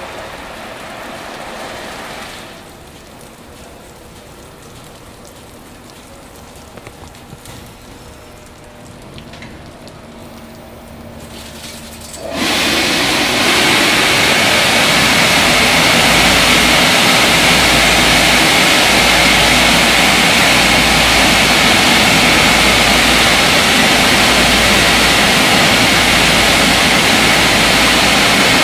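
Aquarama rollover car wash: a quieter stretch of machinery hum as the gantry travels, then about twelve seconds in its dryer blowers switch on suddenly, a loud steady rush of air with a constant whine.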